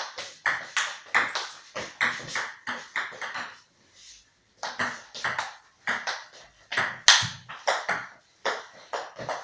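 Table tennis rally: the ball clicks sharply off the paddles and the table, about three hits a second, with a short break a little before halfway before play resumes.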